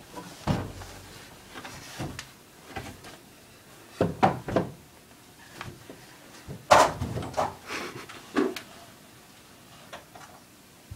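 Scattered knocks and thumps from a chair being moved and people shuffling about in a small room, the loudest cluster a bit past the middle.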